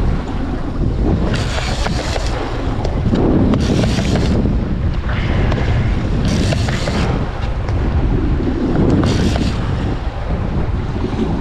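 Strong wind buffeting the microphone over rough open sea, with waves splashing against a small boat's hull in surges every two to three seconds.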